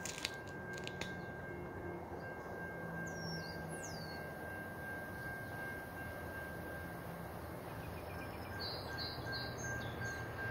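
Distant train approaching: a low steady rumble that grows slightly near the end, with a few bird chirps over it, including a quick run of three chirps near the end.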